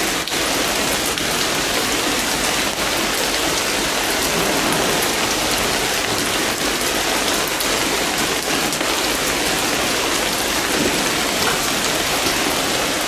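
Steady rain falling on hard surfaces, an even hiss with now and then a louder drop.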